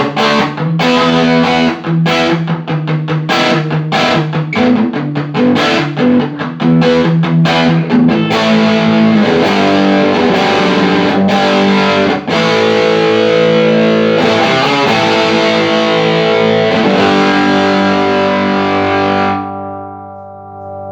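Electric guitar played with overdrive through a Laney Cub12 valve amp with EL84 output valves, working again after repair of a blown output transformer, a shorted EL84 and a faulty bias supply. Quick rhythmic chord strokes give way about eight seconds in to held distorted chords; near the end the last chord is left to ring with its top end gone.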